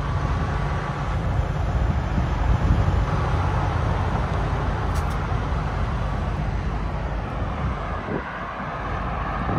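Heavy diesel engine of an International LoneStar semi truck idling steadily, a constant low rumble.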